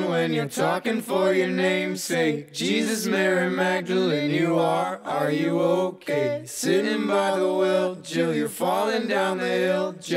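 Music: unaccompanied, chant-like singing over a steady held low note, with the sung phrases breaking off and starting again every second or two.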